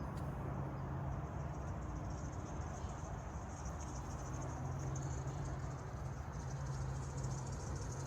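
Crickets trilling steadily in a high, fast-pulsing chorus over a continuous low hum and rumble.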